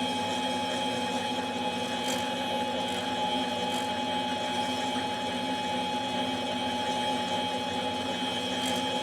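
Machine tool running steadily with an even hum, cutting metal from the base of a chainsaw cylinder, with a few faint light ticks.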